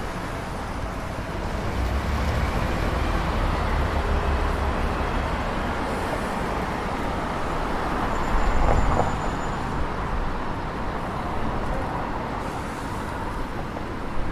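Street traffic: cars and double-decker buses passing on a wet road, a steady low engine rumble with tyre noise, swelling louder about eight seconds in as a vehicle goes by.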